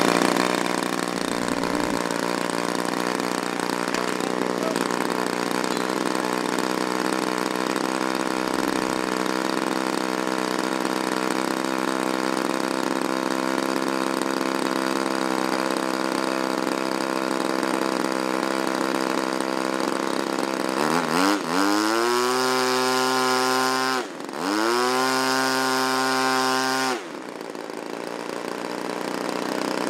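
Large-scale radio-controlled Spitfire model's piston engine, just started, idling steadily with its propeller turning. About twenty seconds in it is run up to high revs in a quick rising glide, dropped back for a moment, run up again and held for a few seconds, then throttled back sharply to idle near the end.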